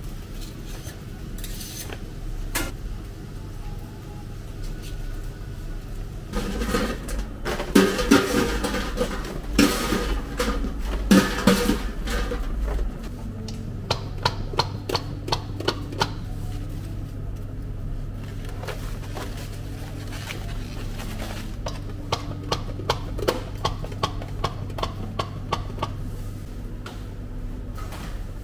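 Kitchen prep work: clattering, then runs of quick, regular knocks over a steady low machine hum.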